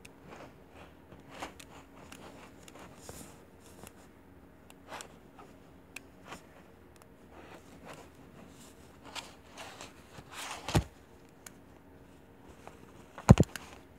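Handling noises as a plastic baby doll is changed by hand: rustling and scraping of doll clothes with scattered small clicks and knocks, and two louder thumps, the loudest near the end.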